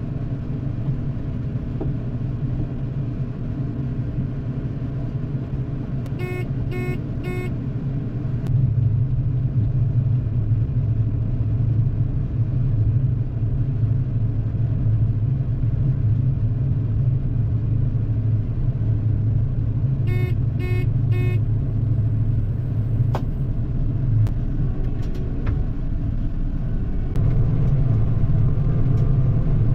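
Farm vehicle engine running steadily with a low hum, heard from on board; it gets louder about eight seconds in and again near the end. Twice, a quick series of three short electronic beeps sounds, about six seconds in and again about twenty seconds in.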